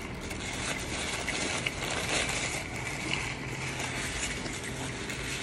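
Eating sounds: chewing fried chicken, with a few soft clicks from handling it, over a steady hiss.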